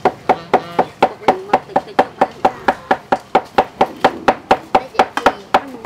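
Cleaver chopping on a round wooden chopping board: a steady rhythm of about four strokes a second, each with a short metallic ring.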